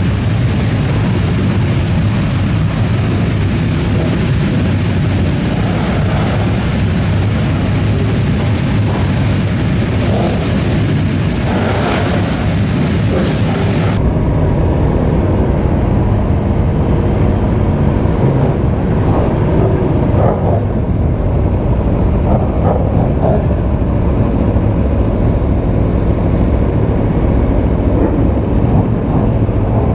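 Aprilia RSV4 RF motorcycle ridden at speed: steady wind rush over the microphone with the V4 engine running underneath. About 14 seconds in, the hiss in the high end drops away abruptly.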